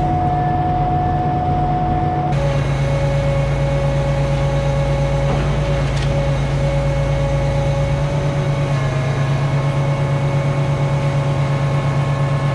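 Concrete boom pump truck running steadily, its diesel engine driving the pump while concrete is placed through the boom. A steady whine sits over a low engine hum, and the whine shifts pitch about two seconds in.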